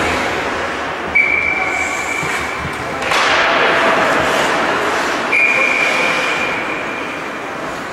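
Two long, steady high-pitched tones, each about two seconds, the second starting about two seconds after the first ends. Between them is a louder wash of broad noise.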